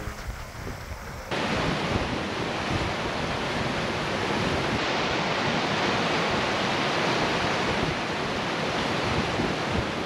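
Mountain river rushing over rocks, with wind buffeting the microphone at first. About a second in it jumps to the loud, steady rush of whitewater rapids close by.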